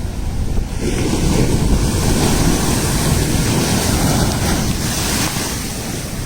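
Cyclone-driven storm surf churning and crashing, with strong wind buffeting the microphone. The rush swells about a second in and eases slightly near the end.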